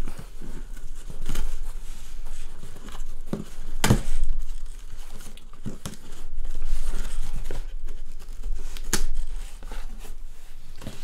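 Hands opening a cardboard shipping box: packing tape and cardboard tearing and crinkling in irregular rustles, with two sharper, louder rips, one about four seconds in and one near the end.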